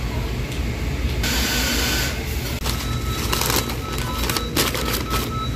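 A paper takeaway bag rustling and crinkling as it is handled, in a run of short crackles. Under it runs a steady low hum, with a short hiss about a second in.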